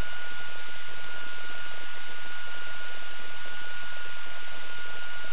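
Steady hiss from a light aircraft's headset intercom feed during taxi, with a constant thin high-pitched whine running through it.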